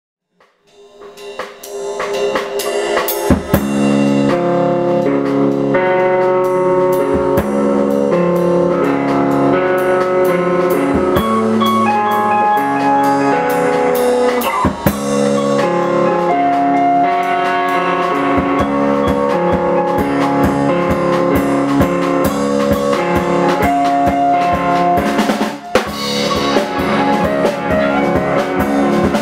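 A metal band playing live: electric guitars, bass guitar and a drum kit. The music swells in over the first three seconds, then runs at full level with steady drum hits, as a rough room recording.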